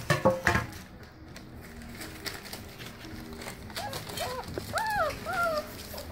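Boerboel × Presa Canario puppies whimpering: about five short, high whines that rise and fall, starting about four seconds in. Before them, a few loud knocks and rustles open the sound.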